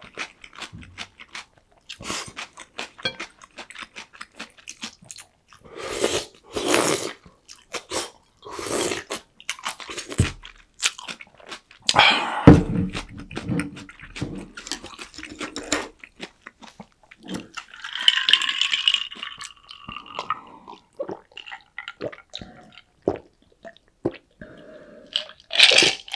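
Close-miked eating sounds: crisp crunching bites and chewing, typical of breaded fried pork cutlet (donkatsu), in a run of irregular bites.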